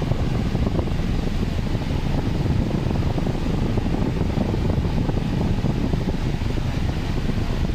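Steady rushing air noise, strongest in the low end, with a rumbling buffet on the microphone.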